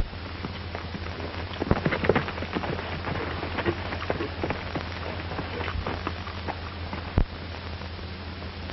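Worn optical soundtrack of an old film with no dialogue: a steady low hum under hiss, with irregular crackles and pops. One sharp pop comes about seven seconds in.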